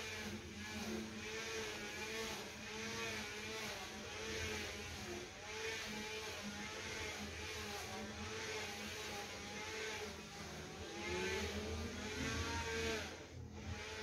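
A string trimmer (weed eater) engine running in the background, its pitch wavering up and down every half second or so as the throttle varies, with a brief drop near the end.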